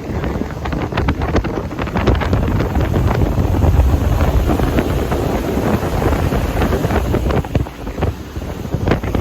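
Wind buffeting the microphone on a boat under way, over a steady low rumble of the boat and the rushing water.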